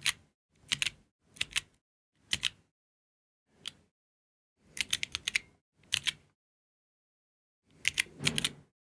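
Georgi stenographic keyboard being typed on in steno chords: short clusters of key clicks, one cluster per chord, about a second apart. There is a longer pause of a second and a half between about six and eight seconds in.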